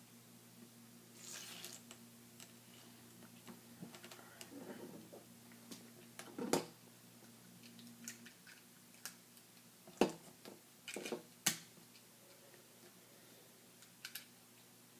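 LEGO plastic pieces clicking and knocking as they are handled and snapped together, in scattered sharp clicks with the loudest about midway and near two-thirds through, and a brief rustle early on over a low steady hum.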